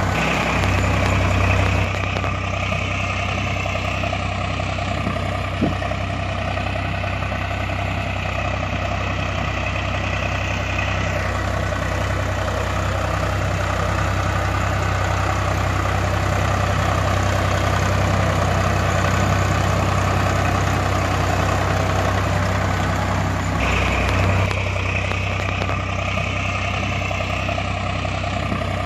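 Tractor engine running steadily at idle, a sound track laid over the toy, whose character shifts abruptly about two, eleven and twenty-four seconds in.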